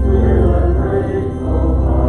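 Music of slow, held chords over a deep sustained bass note, the chords changing twice.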